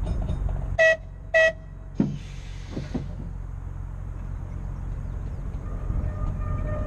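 Blackpool Boat tram 606 sounding two short horn toots, the signal that it is about to move off, followed by a clunk and a brief hiss of air. Near the end a steady traction-motor whine builds as the car starts to roll.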